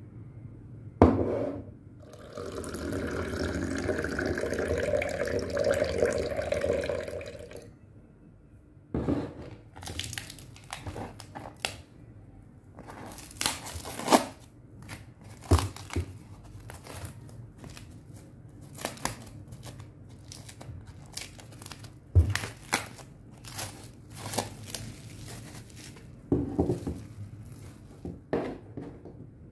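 Clear plastic shrink-wrap being peeled and torn off a small stretched canvas. There is a continuous crinkling stretch of about five seconds, then a long series of short, sharp crackles.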